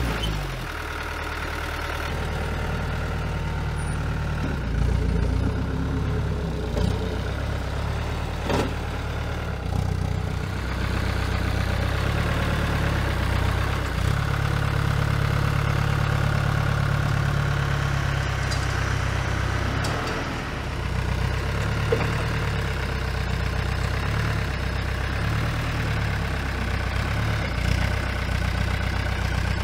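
Diesel engine of a truck-mounted forklift running steadily, louder for several seconds in the middle while the hydraulic mast lifts a stack of fruit bins. There are a couple of short clanks.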